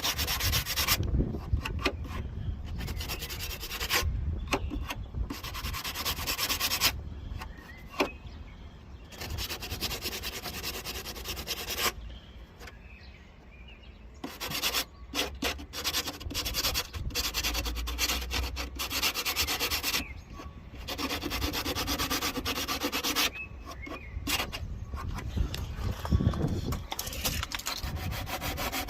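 Sandpaper on a hand-held sanding block rubbed over the steel bodywork of a 1995 Rover Metro, in quick back-and-forth strokes that come in runs of a few seconds with short pauses between. The rough, previously filled areas are being blended back into the paintwork.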